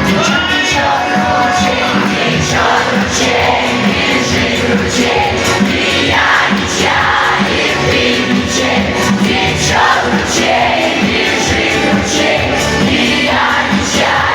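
Live folk-pop concert music played loudly through a hall PA, with a steady beat, a singer's voice and the audience audible underneath.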